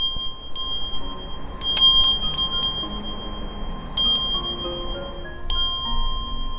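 Small metal Korean wind bell (pung-gyeong) with a fish-shaped sail, its clapper striking the bell again and again with a clear, lasting ring: a quick flurry of strikes about two seconds in, then single strikes near four and five and a half seconds, the ring fading softly between them.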